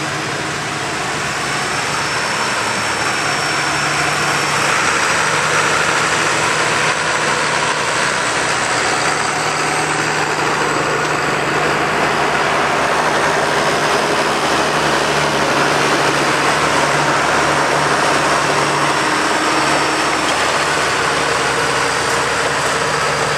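Diesel tractor engine running steadily, loud, with a low even hum and no revving.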